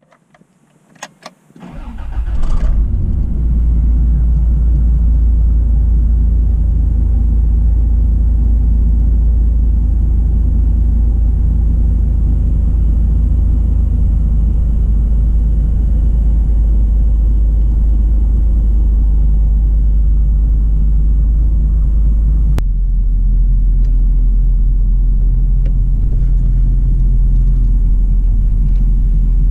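1990 Toyota Land Cruiser FJ62's 4.0-litre 3F-E straight-six on a cold start: a few clicks and brief cranking, then it catches and settles into a steady idle. About two-thirds of the way through there is a click and the idle note drops a little.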